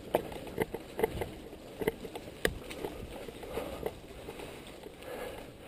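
Mountain bike rolling over a bumpy dirt trail: irregular knocks and rattles, about one or two a second, over a low rumble of tyres and wind.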